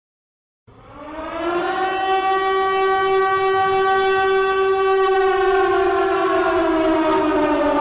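Civil defence air-raid siren starting up after a second of silence, rising in pitch, holding a steady wail, then slowly winding down in pitch near the end: a missile-attack warning.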